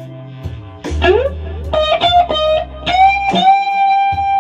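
Electric guitar playing a lead phrase, with a string bend rising about a second in and a long held note from about three seconds on, over a low bass line.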